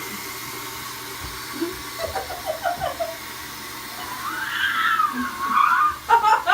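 A child's high, wavering whine lasting about two seconds, midway, with shorter voice sounds before it and choppier ones near the end, over a steady hiss.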